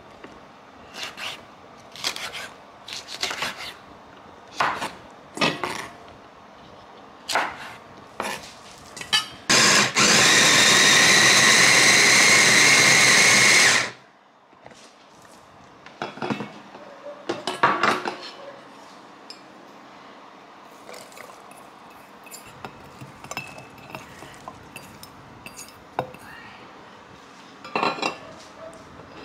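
Small electric food chopper running for about four seconds, chopping red chillies in its glass bowl, and stopping suddenly. Scattered knocks and clinks of ingredients being handled and dropped into the bowl come before and after it.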